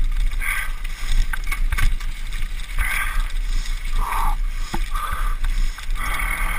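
Wind buffeting an action-camera microphone over the rumble and rattle of riding fast along a rough dirt trail, with several short higher-pitched noises breaking through.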